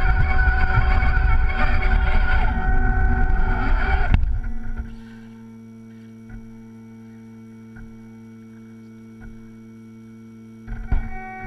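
Electric motor and gear drive of a radio-controlled crawler truck whining as it crawls through snow, with rough rattling, heard from a camera mounted on the truck. About four seconds in the truck stops and only a faint steady hum remains. The motor starts again near the end.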